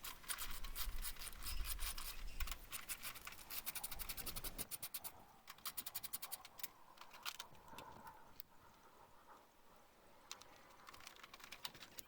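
Quick runs of clicking and scraping as the radiator fan shroud is worked loose, dense for the first few seconds, then thinning to scattered clicks.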